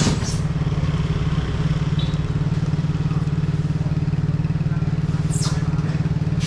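An engine idling steadily, with a fast, even pulse. A short scrape comes about five seconds in.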